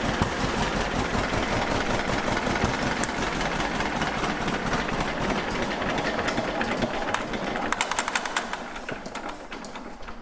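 John Deere B's two-cylinder engine running with a steady, rapid beat, an engine the owner judges pretty tired. Near the end the beats slow and the sound fades away, as if the engine is shut off and winds down.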